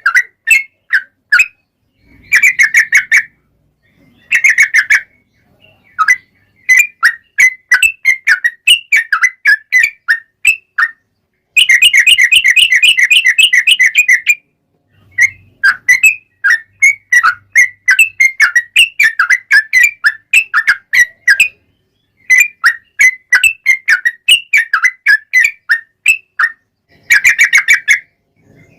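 Yellow-vented bulbul (trucukan) song: phrases of short bubbly whistled notes repeated with brief pauses. About twelve seconds in comes a long, very fast chattering run (the "ropel") lasting over two seconds.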